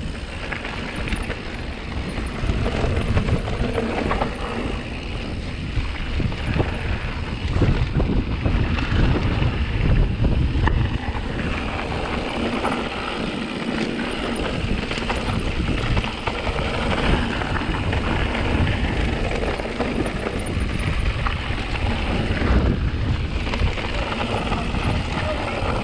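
Wind buffeting the action-camera microphone as a mountain bike rides fast downhill on a dirt and gravel trail, with tyres crunching and the bike rattling over bumps.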